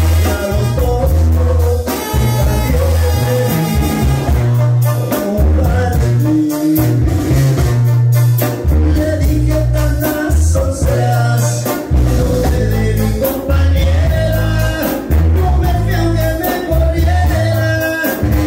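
Latin band music with a singer over a strong, rhythmic bass line.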